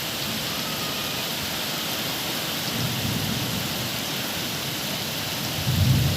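Steady rain falling, an even hiss throughout. Two brief low rumbles rise under it, one about three seconds in and a louder one near the end.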